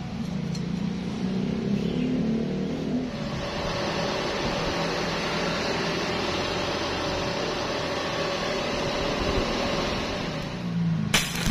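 Angle grinder running on steel: a steady motor hum that turns into a dense grinding hiss about three seconds in. Just before the end, a stick-welding arc strikes and starts crackling.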